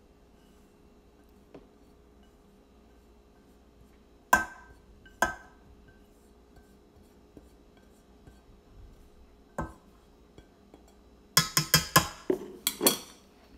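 Kitchen utensils clinking against a mixing bowl while flour is added to the dough: two ringing clinks, a single clink a few seconds later, then a quick run of clinks near the end.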